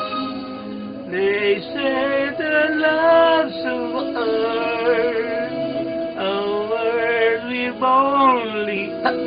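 A man singing a slow ballad over a sustained musical accompaniment, his voice coming in about a second in and breaking off briefly a few times with sudden hiccups.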